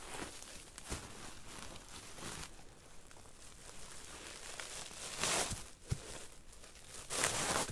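A white plastic sack rustling and crinkling as it is handled and opened, with two louder bursts of rustling about five seconds in and near the end. Footsteps scuff through dry leaf litter early on.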